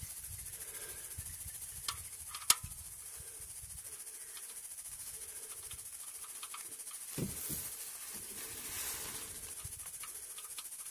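The last of the engine oil draining from a 2011 Ford Flex's oil pan into a catch bucket, a faint steady hiss as the flow dies down. A sharp click comes about two and a half seconds in and a low knock about seven seconds in.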